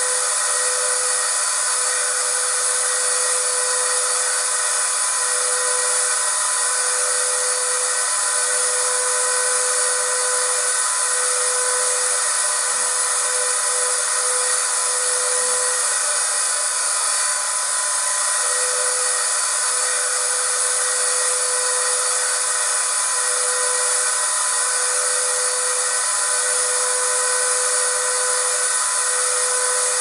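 Vacuum cleaner running steadily: a continuous rush of air with a high, even motor whine, unchanging throughout.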